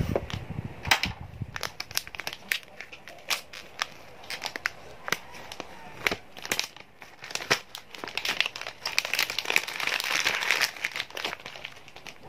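Paper seal strips on an iPhone 12 Pro Max box being torn and peeled off, with crinkling and many small clicks and crackles as the cardboard box is handled. A denser run of tearing comes about eight to eleven seconds in.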